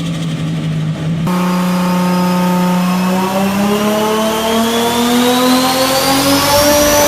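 Turbocharged Toyota Supra engine holding a steady note, then climbing slowly in pitch as it accelerates, with a thin high whine rising alongside it.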